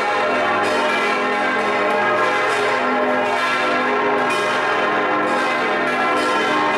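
Several large swinging bronze church bells ringing together, heard close up inside the bell tower, their strokes overlapping in a dense, continuous peal. This is the full peal of the six-bell ring tuned As° c' es' f' g' b'.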